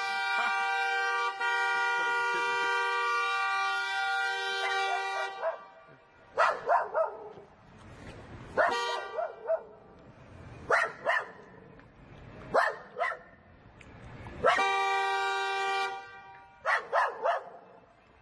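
A car horn sounds in one long steady blast for about five and a half seconds, pressed by a dog pawing at the steering wheel. Then the dog barks in short bursts, the horn sounds again for about a second and a half, and more barks follow.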